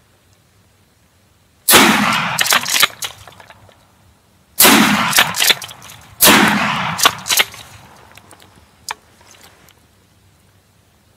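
Three shotgun shots at wild turkeys, the second about three seconds after the first and the third a second and a half later, each echoing for about a second. A single sharp click follows a few seconds after the last shot.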